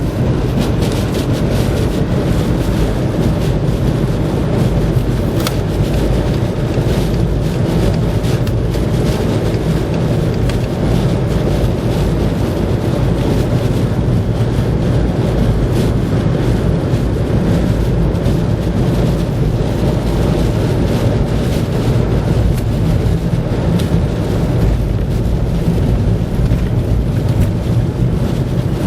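Storm wind blowing hard across the microphone: a loud, unbroken rumble.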